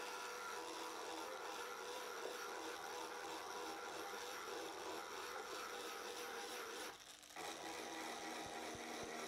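Handheld rotary tool with a burr bit, its small motor whining steadily as it mills the surface of a plastic headlamp housing to prepare it for a plastic weld. The whine drops off briefly about seven seconds in, then picks up again.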